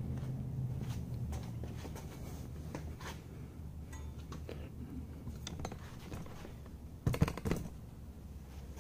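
Light metallic clinks and handling of a steel prop puller and an adjustable wrench as the puller's centre bolt is tightened against a bronze propeller, with a short cluster of sharp metal clacks about seven seconds in.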